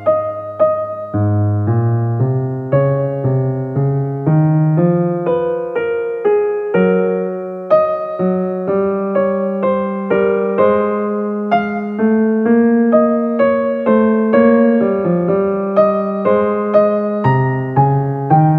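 Background piano music: a steady, unhurried run of single notes over lower held notes.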